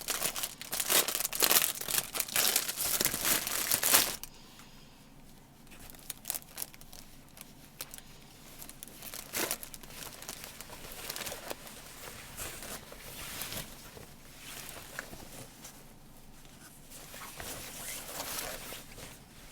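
Packaging crinkling as it is opened and handled, loud and dense for about the first four seconds, then softer, scattered rustles and crinkles.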